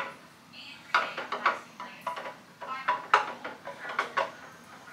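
Glass canning jars knocking and clinking against each other and the bottom of a metal pressure canner as they are set in, a string of irregular sharp knocks.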